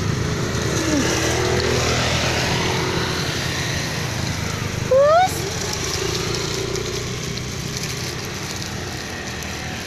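Steady rain falling, with one cat meow about halfway through, a short call rising in pitch.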